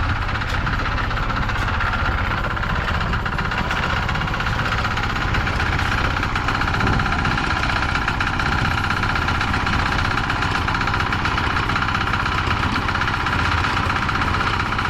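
Small engine running steadily at constant speed, a continuous drone that does not change.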